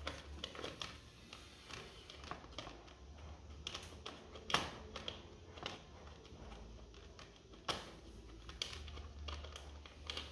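Scattered light clicks and taps of hands and a tool working an 8 mm bolt on a scooter's engine casing, irregular, with a couple of sharper knocks midway.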